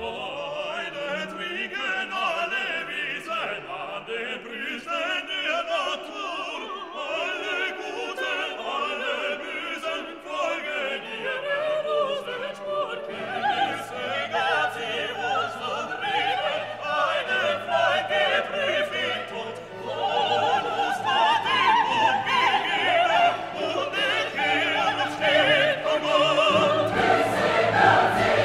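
Background music: classical operatic singing with choir and orchestra. The voices waver with vibrato, a low bass part comes in about halfway, and the music grows fuller and louder near the end.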